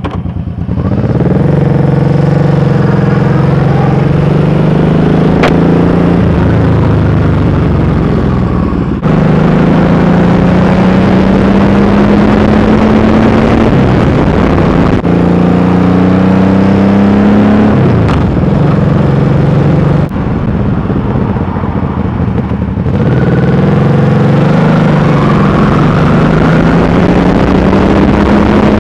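1996 Honda Shadow 1100's V-twin engine pulling away and accelerating under the rider, its pitch climbing through each gear and dropping at the shifts. The sound jumps abruptly a few times between stretches of riding.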